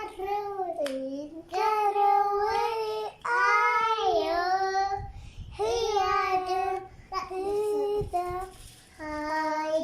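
A young child singing without accompaniment: several short phrases of long held notes, each about a second, with brief breaks between them.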